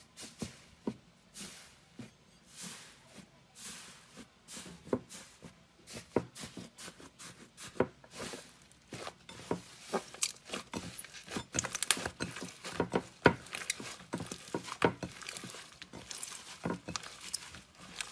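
Hands squeezing, pressing and tearing thick, fluffy slime, making sticky pops, clicks and crackles. The pops are sparse at first, about one a second, and become denser and louder about halfway through as the slime is pulled apart.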